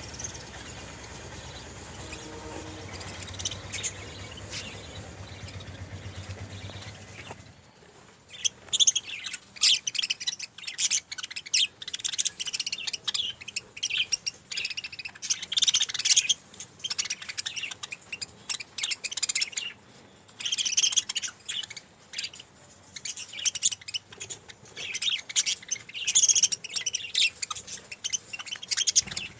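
Budgerigars chirping and chattering in quick, high, overlapping calls. They start about seven seconds in, after a steady low hum that cuts out.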